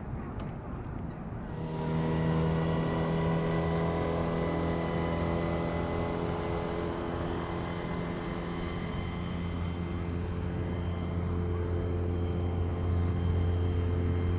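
Twin-engine ATR turboprop's engines and propellers running, a steady hum of several stacked tones. It swells up about two seconds in and then holds at an even pitch, as the aircraft powers up on the runway for departure.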